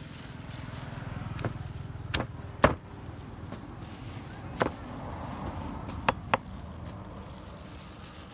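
Knife chopping on a cutting board: about six sharp, unevenly spaced chops, two of them in quick succession near the end, over a low rumble.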